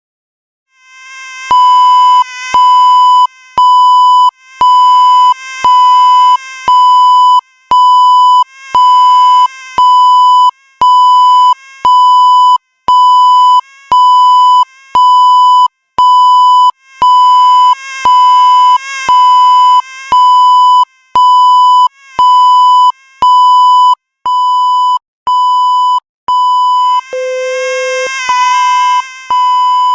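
Loud, high-pitched electronic beep tone repeating about once a second, each beep lasting a little under a second. Near the end a lower tone joins it and the beeps run closer together.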